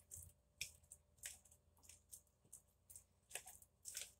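A fork mashing avocado in a bowl: faint, short scrapes and taps of the fork against the bowl, about two a second.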